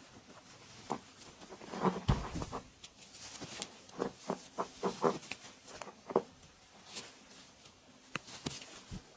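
Hands slapping and tapping on a body during a massage: irregular short strikes, a heavier thump about two seconds in and a quick run of pats between about four and five and a half seconds in.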